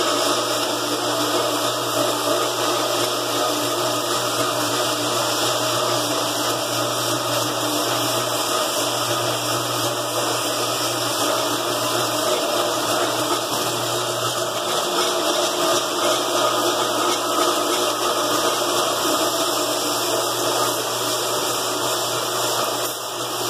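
Electric floor buffer running steadily, stripping old finish and paint off a floor.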